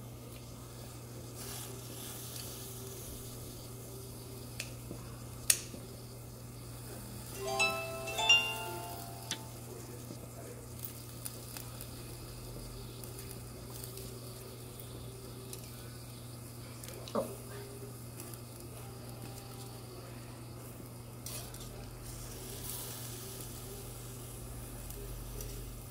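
Seafood broth simmering in a pot on a tabletop burner, a steady bubbling hiss over a low hum, while kitchen scissors and metal tongs snip and click as a whole octopus is cut up over the pot. A brief squeaky sound stands out about eight seconds in.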